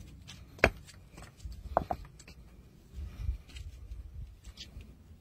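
A few sharp clicks and knocks over a low rumble: one loud click about half a second in, a quick double click near two seconds, and fainter ticks after.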